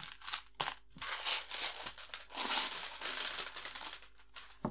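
Plastic Lego Technic beams and pieces rattling and clicking against each other in a clear plastic tub as hands rummage through them, then clattering as the tub is tipped out into a plastic sorting tray.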